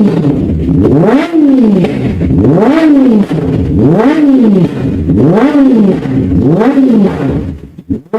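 Sport motorcycle engine being revved repeatedly while stationary: about six throttle blips, each pitch rising quickly and falling back toward idle, roughly one every second and a quarter.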